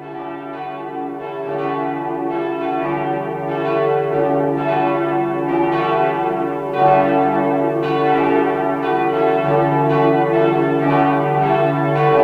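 Church bells pealing: several bells struck over and over, their ringing tones overlapping, growing louder over the first few seconds.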